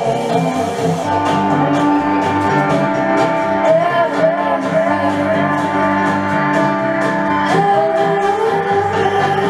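Song playing with a singing voice, guitar and a steady beat.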